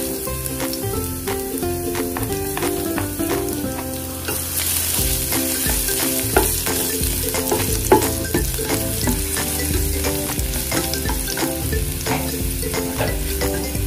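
Chopped garlic sizzling in hot oil in a ceramic-coated frying pan as it is sautéed, stirred with a plastic spatula that scrapes and taps against the pan. The sizzle gets louder about four seconds in.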